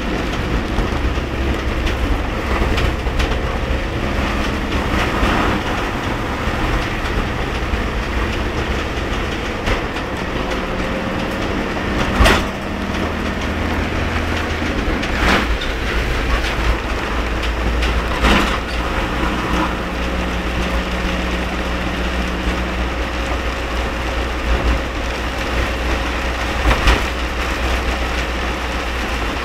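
A vehicle travelling through very heavy rain: a steady hiss of rain and wet road over a low rumble, with a few sharp knocks now and then.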